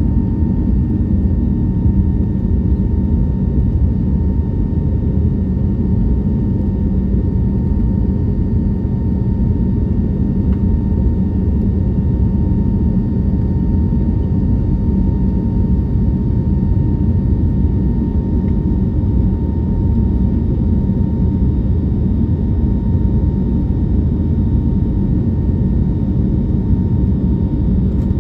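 Steady cabin noise of an Airbus A321neo in flight, heard from a passenger seat: a constant deep rush of engines and airflow with a faint steady whine above it.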